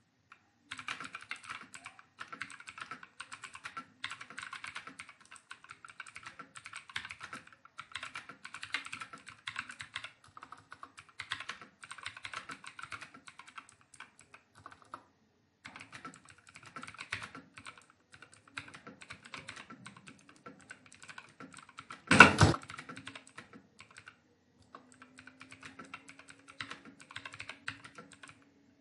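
Fast continuous typing on a computer keyboard, rapid key clicks in runs with brief pauses, as in a timed typing speed test. About three-quarters of the way through there is one much louder thump, and near the end a faint steady hum comes in under the typing.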